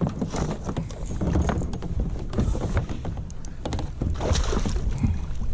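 Irregular knocks, bumps and rubbing against a kayak's hull and gear while a hooked fish is handled at the side of the boat.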